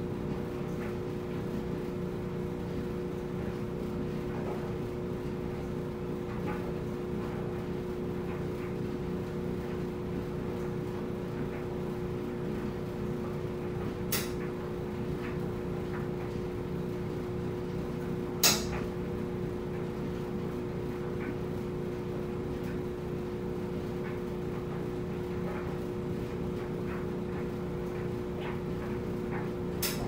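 Front-loading clothes dryer running with clothes tumbling in the drum: a steady hum over a low rumble. A sharp click comes about halfway through, and a louder one a few seconds later.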